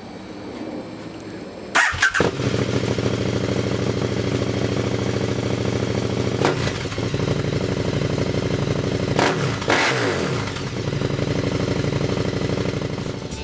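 KTM 1290 Super Duke R's 1301 cc V-twin, with an SC-Project SC1-R slip-on and a de-cat link pipe, is started and catches about two seconds in. It then idles with a deep, lumpy growl, with a short throttle blip about six seconds in and two more near ten seconds, each dropping back to idle.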